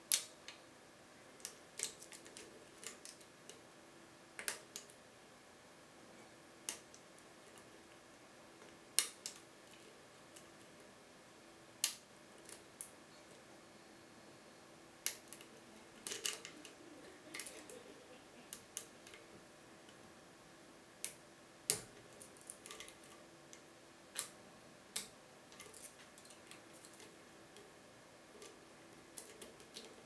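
Lock pick and tension tool working inside a Bricard Supersureté disc-slider (paillettes) lock cylinder: irregular sharp metallic clicks and ticks from the pick on the sliders, over a faint steady hum.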